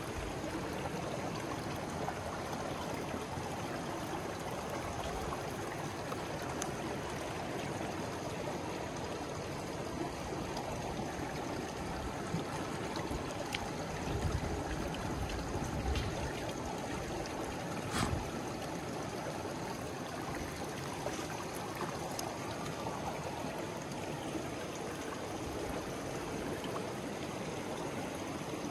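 Shallow rocky creek flowing, a steady rushing and trickling of water over stones. A few brief knocks come in the middle, the sharpest about eighteen seconds in.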